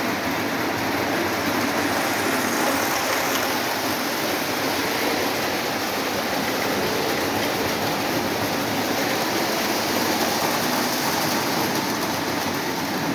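Several Lionel O27 toy trains running together on the track: a steady whir of electric motors and wheels on rails.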